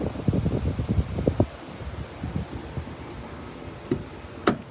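Insects chirring outdoors in a steady, high, evenly pulsing drone. Low rustling and knocks come in the first second and a half, and a single sharp click comes near the end.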